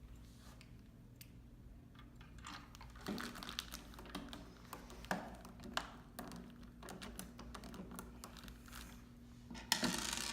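Light irregular clicks, taps and scrapes of small parts being handled and a screw being turned in by hand on a Roman blind clutch, with a louder clatter near the end.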